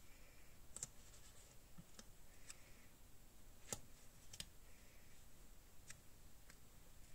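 Faint handling of paper stickers on a journal page: several short, scattered clicks and taps as stickers are peeled and pressed down, with light paper rustling between them.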